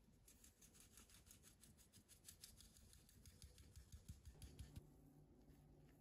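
Flour being sifted through a fine-mesh stainless-steel sieve shaken rapidly back and forth, making a faint rhythmic rasping of several strokes a second that stops about five seconds in.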